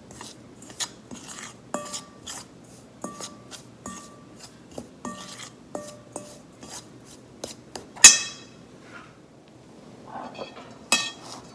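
A metal spoon stirring dry flour mix in a stainless steel mixing bowl, knocking against the bowl again and again so that it rings briefly with each knock. A much louder ringing clang comes about eight seconds in.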